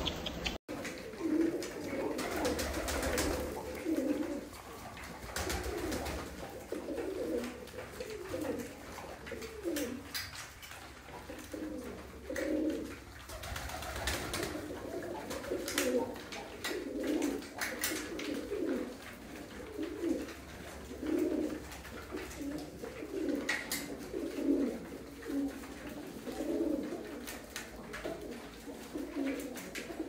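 A flock of Iraqi domestic pigeons cooing, many short coos overlapping without a break, with scattered sharp taps of beaks pecking at feed on concrete.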